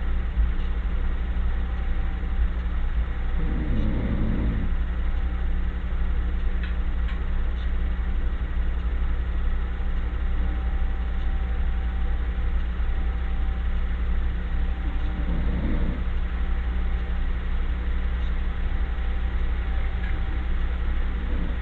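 A person snoring: a few rough, low snores about a second long each, one a few seconds in, one about three-quarters through and one at the very end, over a steady low rumble.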